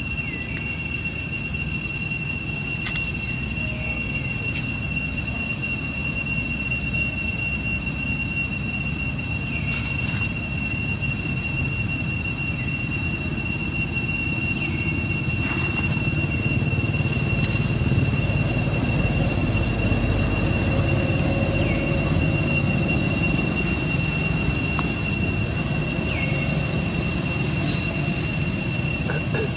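A steady high-pitched whine holding two pitches, one about an octave above the other, over a low rumbling hiss, with a few brief falling chirps every few seconds.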